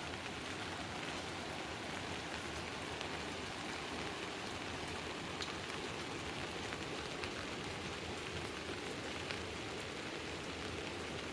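Steady monsoon rain falling: an even hiss with scattered drop ticks.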